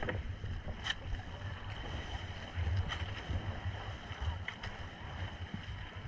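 Water rushing and splashing along the hull of an outrigger sailboat (paraw) under sail, with wind buffeting the microphone in a low rumble and a few light knocks.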